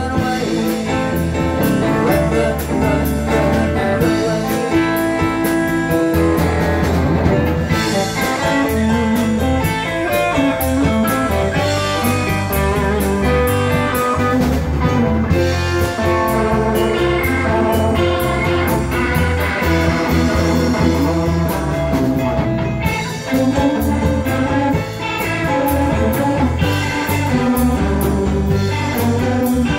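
A live bar band playing: electric guitar, electric bass, drums and keyboard, with the guitar prominent.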